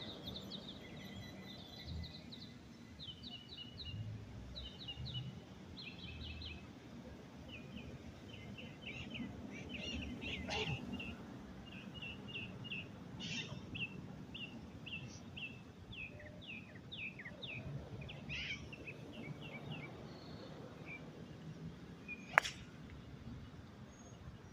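Birds chirping and singing on and off, with one sharp crack about 22 seconds in: a golf club, an Adams Tight Lies Strong 3 fairway wood, striking the ball.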